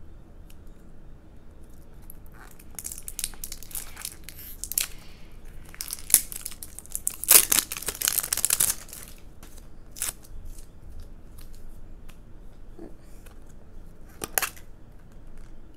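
Clear plastic wrap being torn off and crinkled in the hands, loudest in the middle, then a sharp click from the plastic tub's snap lid near the end.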